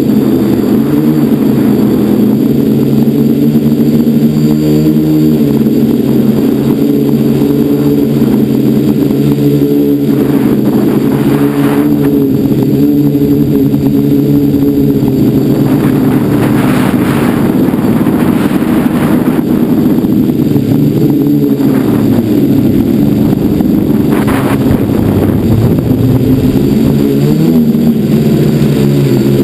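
Quadcopter's electric motors and propellers whining steadily, recorded by a camera mounted on the craft, the pitch shifting as the throttle changes. Rushes of wind noise come in a few times.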